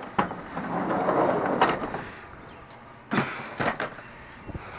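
A vehicle door being worked open and shut: a knock, a scraping rustle lasting about a second and a half, then several sharp clunks near the end.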